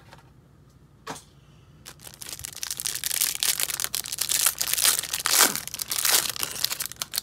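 Clear plastic wrap on a stack of baseball cards being crinkled and torn open by hand. It starts about two seconds in, after a single faint click.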